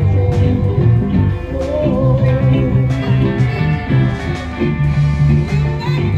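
Music: a guitar-backed song with a singing voice carrying the melody.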